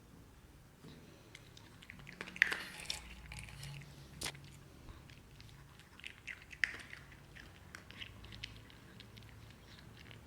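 A pet chewing a treat it has just been given: a run of small, irregular crunches and clicks, a couple of them sharper than the rest.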